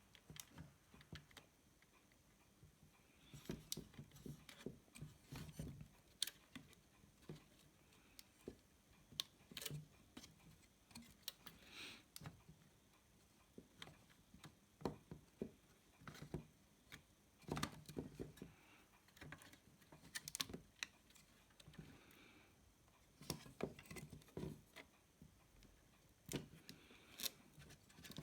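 Faint, irregular clicks, taps and light knocks of a car stereo's small plastic and metal parts being handled and fitted together during reassembly.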